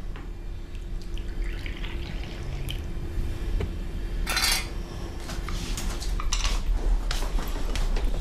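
Coffee poured from a stovetop moka pot into a small porcelain cup. Then a sharp clatter about halfway through, followed by lighter clinks of china and a spoon on a tray.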